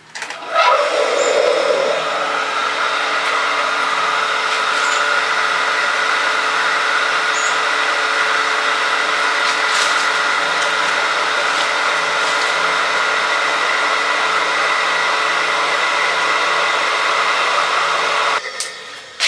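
Electric well pump's motor starting up and running steadily with a whine, then cutting off near the end. It is running without delivering any water to the hose, and it sounds wrong.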